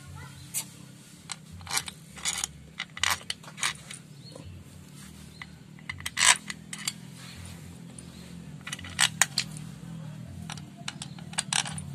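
Metal hand tools and small engine parts clinking and tapping in irregular sharp clicks, some in quick clusters, over a low steady hum.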